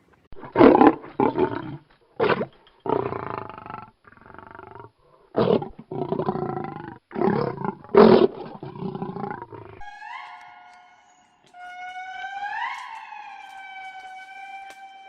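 A large animal roaring and growling in a series of short, rough bursts. About ten seconds in, this gives way to a pitched wailing tone that swoops up and then holds steady.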